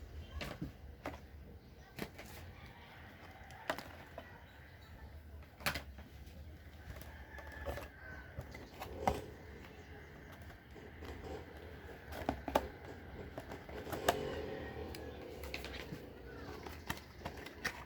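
Irregular clicks and knocks, a sharp one every second or two, as headphones and their packaging are handled, over a steady low hum.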